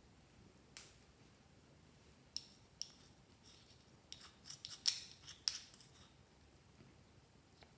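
A series of sharp, crisp clicks: a few single ones spaced out, then a quick bunch of them about four to five and a half seconds in.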